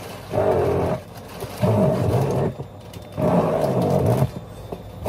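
Handheld stick blender whizzing tomatoes in a plastic jug, run in three short pulses of about a second each, its motor pitch wavering as the blade works through the chunks.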